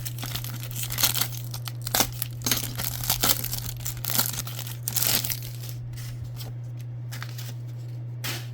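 A trading-card pack wrapper being torn open and crinkled, a quick run of sharp crackles for the first five seconds or so, then handling goes quiet apart from one click near the end. A steady low hum runs underneath.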